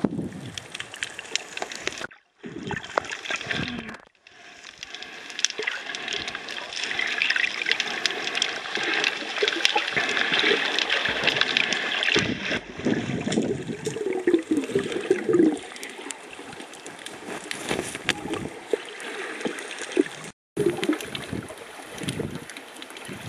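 Water gurgling and sloshing around an underwater camera during snorkelling, dense with small crackling clicks. It grows louder in the middle and cuts out briefly a few times.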